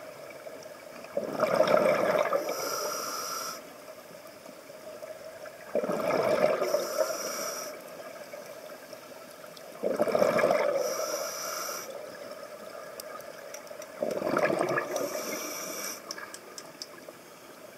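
Scuba diver breathing through a regulator underwater: a steady cycle of breaths about every four seconds, each a hiss from the regulator and a loud gurgling burst of exhaled bubbles. Four breaths are heard.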